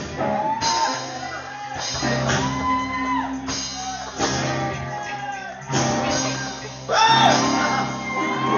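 A live church band with drum kit and guitars playing worship music, with voices shouting and singing over it, sliding up and down in pitch in short phrases.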